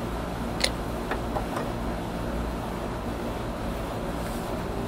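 Four small sharp clicks in the first two seconds, the first the loudest, as the metal CO2 magazine of an airsoft pistol is handled while its cartridge is being screwed in. A steady low hum runs underneath.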